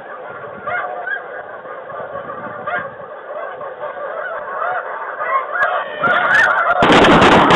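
A flock of snow geese calling, a dense chorus of many overlapping high honks. Near the end it gets much louder, with a harsh rush of noise over the calls.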